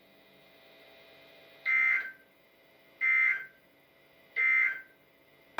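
Emergency Alert System SAME header on NOAA Weather Radio: three short bursts of buzzy two-tone digital data, each about half a second long and spaced a little over a second apart. They are the coded header that opens an alert, here a severe thunderstorm warning.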